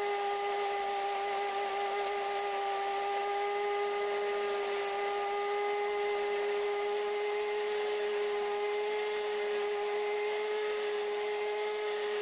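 Electric mixer grinder (mixie) running at steady speed, blending chopped pineapple into juice in its jar: an even motor whine over a whirring rush, holding one pitch throughout.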